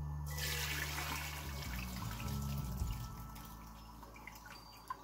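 Ground maize in milky water poured from a bowl through a stainless steel mesh strainer, splashing and trickling. It starts suddenly about a third of a second in and grows quieter over the last two seconds.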